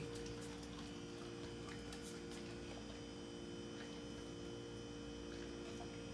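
Quiet room with a steady electrical hum made of several held tones, and a few faint clicks scattered through it.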